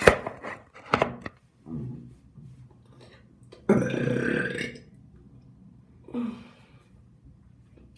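A person burping several times in a row, the longest and loudest burp coming about four seconds in and lasting about a second. A sharp click sounds at the very start.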